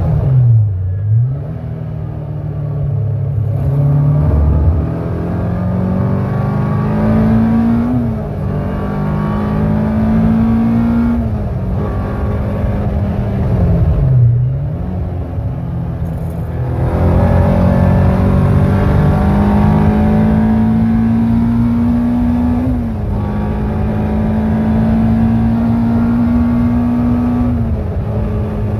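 Caterham R400's four-cylinder engine heard from the cockpit under hard acceleration. Its pitch climbs steadily in each gear and falls back at every gear change, with two deeper dips, about a second in and about halfway through, before it pulls up again.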